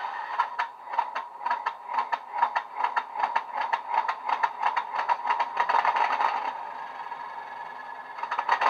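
Class 37 diesel sound file from a LokSound 5 decoder, played through the model locomotive's small built-in speaker: a rapid, even clattering of about six strokes a second over a steady whine for some six seconds, then a short louder burst near the end.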